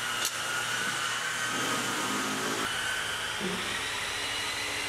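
Ellis horizontal metal-cutting band saw running with a steady whine over a hiss, at a length of aluminum bar stock in its vise.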